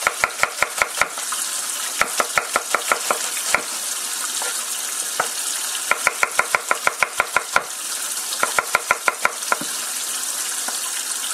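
Chef's knife chopping onion on a wooden cutting board: quick, even knocks of the blade hitting the board, about six a second, in runs with short pauses between. A steady hiss runs underneath.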